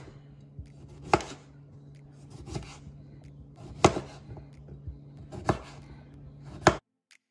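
Santoku knife chopping carrots into thick rounds on a plastic cutting board: sharp knocks of the blade hitting the board, about five strong ones with lighter taps between, over a steady low hum. The sound cuts off suddenly near the end.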